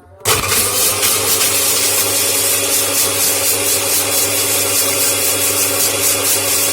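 Electric blender switching on just after the start and running steadily at full speed, chopping kencur (aromatic ginger) root in a little water.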